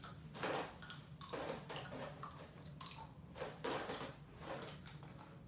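Irregular short, soft noisy sounds, about one a second: people eating extreme sour hard candies, with mouth noises and the candies being handled.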